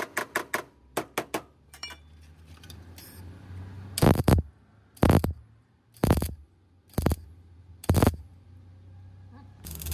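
A quick run of about eight light hammer taps on car-body sheet metal. Then five short tack welds from a wire-feed (MIG) welder, one about every second, tacking a patch panel onto a rusted car door sill.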